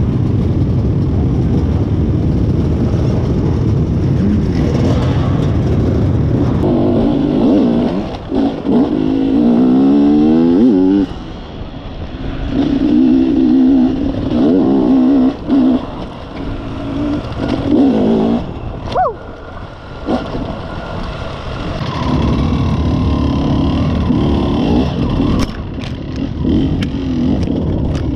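Many dirt-bike engines running together in a steady mass, then, from about eight seconds in, a Beta enduro motorcycle's engine revving up and down over and over as it is ridden over rough dirt trail.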